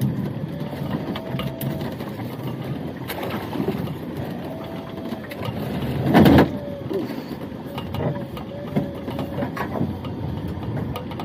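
Small fishing boat's engine running steadily with a slightly wavering note, while a lobster pot is handled on deck. There are scattered clicks and one loud knock about six seconds in.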